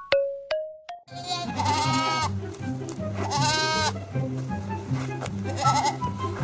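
Boer goat bleating: two long, wavering bleats, then a shorter one near the end, over background music with a repeating bass line. A few rising chime notes sound in the first second.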